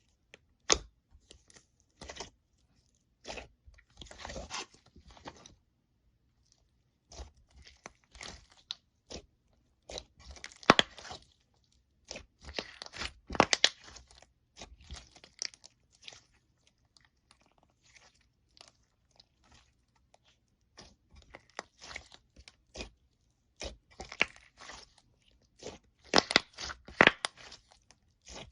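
Slime being squeezed and pressed by hand close to the microphone, making irregular clusters of sharp crackles and pops with brief pauses between handfuls.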